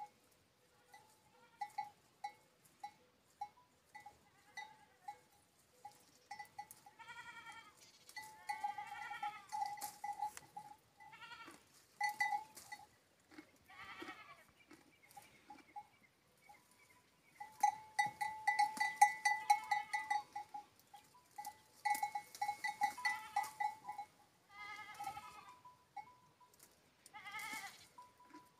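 Livestock bells clinking on and off, with dense runs of ringing about two-thirds of the way through. An animal gives quavering bleats several times, each under a second long.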